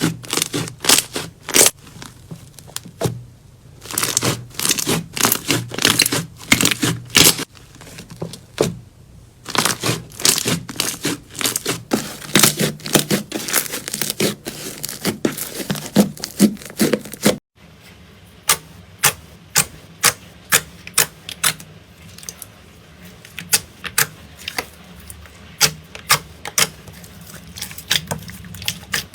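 Slime being squeezed and poked by hand, making rapid crackling clicks and pops. About two-thirds of the way through it cuts abruptly to quieter, more evenly spaced clicks.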